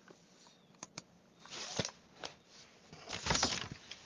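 Handling noise close to the microphone: a few light clicks and two rustles, one about one and a half seconds in and a longer, louder one about three seconds in.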